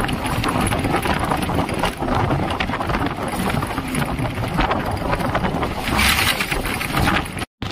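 Wind rushing over the microphone and road noise from a vehicle moving at highway speed, a steady loud rush that drops out briefly near the end.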